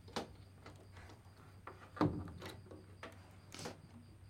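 Soft, irregular clicks and knocks from the keys of an upright piano being touched and pressed, about eight in all, the loudest about two seconds in, over a low steady hum.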